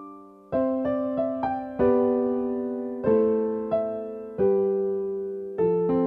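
Gentle electric piano music: struck chords and melody notes, each dying away before the next, after a brief pause at the start.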